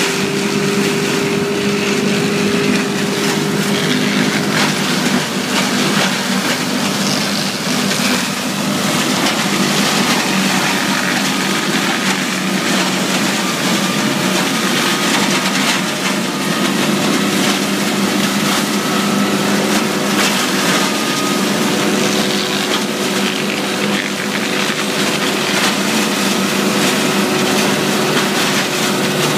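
Tractor engine running steadily while a Zanon pick-up mulcher gathers and shreds dry walnut leaves and twigs: a steady engine and rotor hum under a dense, continuous crackle of debris being chopped.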